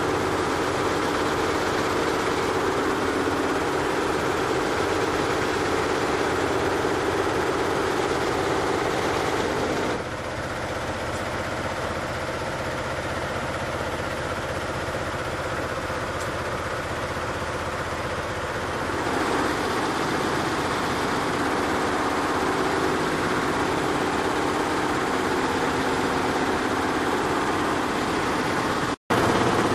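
Tajima computerized embroidery machine running steadily. From about ten seconds in to about nineteen seconds it turns slightly quieter and changes tone, then returns to the earlier sound; the sound cuts out for an instant near the end.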